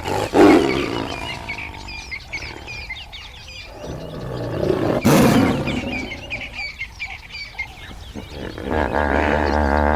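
Livestock calling: a rough, low call about half a second in and another around five seconds in, then a long wavering call near the end, with small birds chirping throughout.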